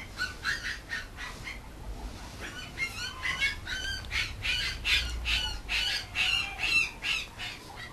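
Mame shiba puppy whining: a run of short, high-pitched cries, a few at first and then several a second from about two and a half seconds in.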